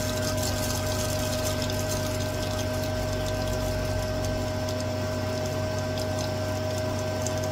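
Coolant pump of an XTool P2 CO2 laser cutter running steadily with a constant hum, starting to push water through the glass laser tube's freshly filled cooling loop.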